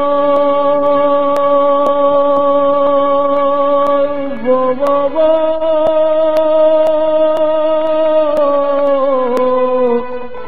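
Sindhi song sung live by a male singer with accompaniment: long held notes that step up to a higher note about halfway through and slide down again near the end.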